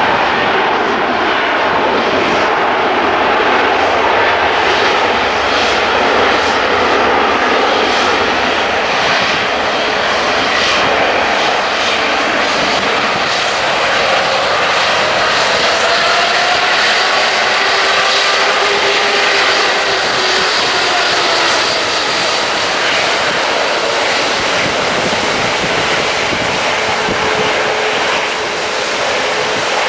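Airliner engines, loud and steady, as an aircraft moves at the airport. Whining tones slowly rise and fall in pitch over the noise as it passes.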